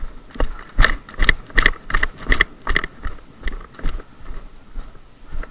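Running footsteps on leaf-littered forest floor, about two to three strides a second, loudest in the first half and easing off near the end.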